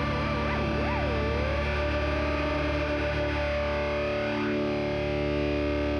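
Background music: distorted electric guitar holding sustained notes, with a wavering bend in the first two seconds.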